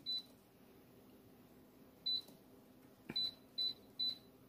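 Power AirFryer XL touch panel beeping as its timer button is pressed to set the cook time down to 5 minutes. There are short high beeps, one at the start, another about two seconds in, and three in quick succession near the end.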